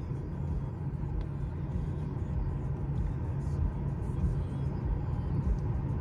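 Car engine idling, a steady low rumble heard from inside the cabin.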